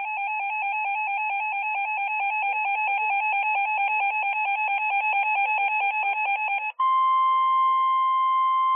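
Emergency Alert System tones: a fast, even warble between two close pitches, then a switch about seven seconds in to a steady single alert tone.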